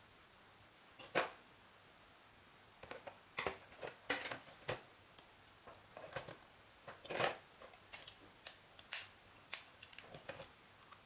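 Plastic parts of a model truck clicking and knocking as hands handle and pull them apart: irregular short clicks, one about a second in, then many more from about three seconds on.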